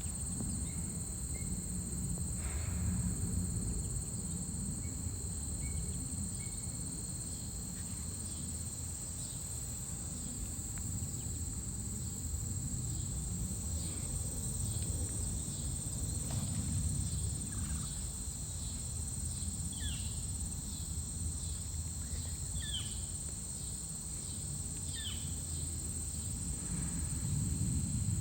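Steady high-pitched chorus of crickets and other insects, over a low rumble, with a few short descending chirps in the second half.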